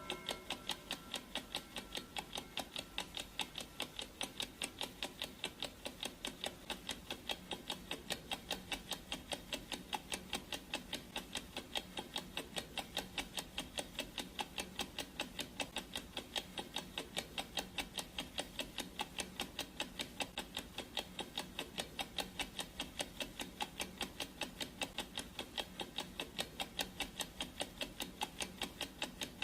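Clock ticking sound effect: rapid, even ticks, several a second, keeping a steady beat.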